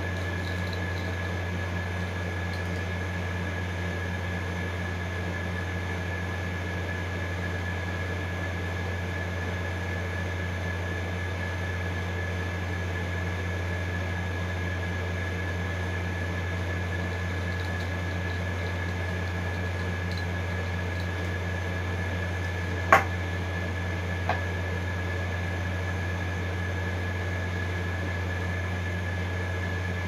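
A steady machine hum with a thin high whine over it, of the sort an air conditioner or fan gives in a small room. Two sharp clicks about two-thirds through, a second and a half apart, as small tools are set down or tapped during phone-repair work.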